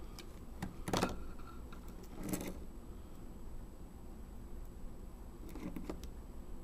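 Handling noises from a small screwdriver and a compact digital camera being worked in the hand: a few short clicks and rubs. The loudest comes about a second in, with others at about two and a half and six seconds.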